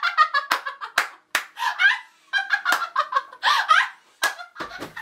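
A young woman laughing loudly in short, high-pitched peals, broken by a few sharp claps.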